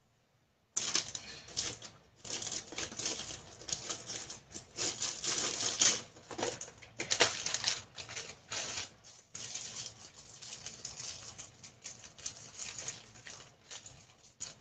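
Thick coconut curry bubbling and popping in a pot as it simmers down to reduce the sauce, a dense uneven crackle that starts abruptly about a second in.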